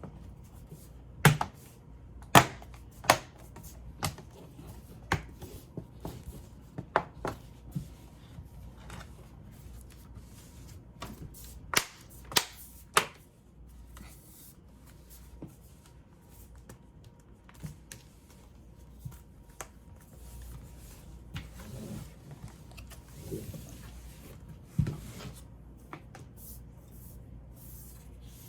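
Laptop parts being handled and fitted back together during reassembly: about ten sharp clicks and taps in the first half, then softer handling noise with one knock near the end.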